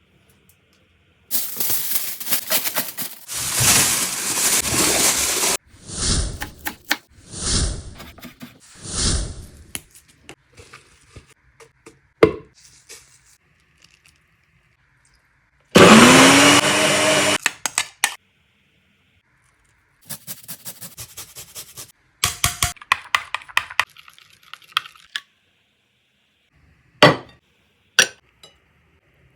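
A series of separate kitchen food-preparation sounds with short pauses between them: a long stretch of scraping and clatter, three pulses a second or so apart, a loud motor burst of about a second and a half with a rising whine, rapid ticking, and two sharp clicks near the end.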